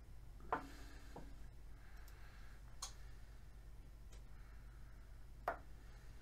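Light clicks and taps of a soldering iron and lithium-ion cells being handled during soldering, with two sharper taps about half a second in and near the end, over a low steady hum.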